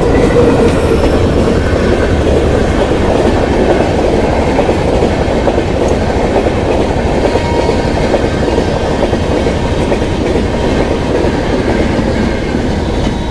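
Express passenger train, an electric locomotive hauling coaches, passing close at speed: a loud, steady rolling noise of coach wheels on the rails that eases a little near the end.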